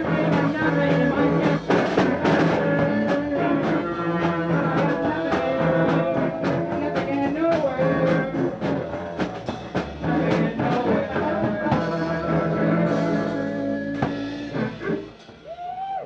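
Rock band playing a song, a drum kit hitting steadily under sustained guitar and bass notes; the music thins out briefly near the end.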